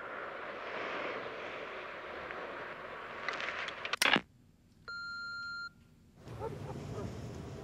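Answering machine playing the end of a phone message through its speaker: line hiss, then a loud click as the caller hangs up about four seconds in, and the machine's single steady beep about a second later. A low background rumble comes in near the end.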